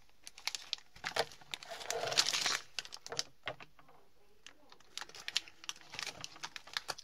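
Crinkling and rustling of crinkly sweet packaging being handled close to the microphone, with many scattered small clicks and a louder rustle about two seconds in.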